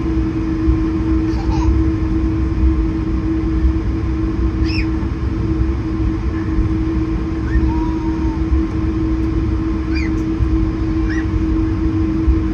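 Cabin noise inside an Airbus A220-100 airliner: a steady low rumble under one constant hum.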